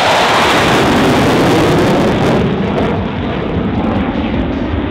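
F-16 Fighting Falcon jet noise from a pass overhead. For about the first two and a half seconds it is a loud roar, then the high hiss drops away and the roar goes on, lower, as the jets move off.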